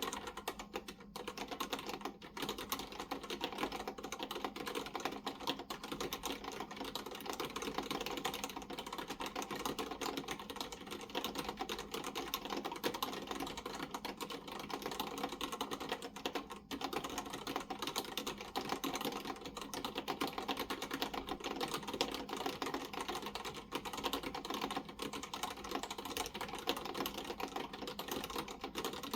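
Continuous fast typing on a Maltron L90 ergonomic keyboard with Cherry MX Black linear switches: a dense run of key clicks with a few brief pauses.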